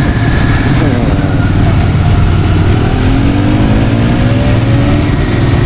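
Royal Enfield Continental GT 650's parallel-twin engine running while riding, its pitch climbing as it accelerates in the second half, with wind rush over the microphone.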